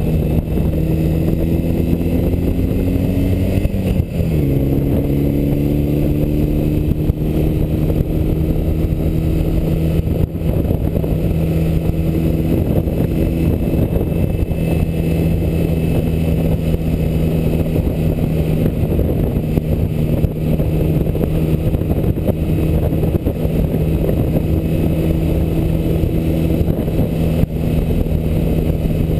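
BMW R75 airhead flat-twin motorcycle engine running under way at a steady cruise, with wind rush. About four seconds in, the engine note drops sharply and then climbs again.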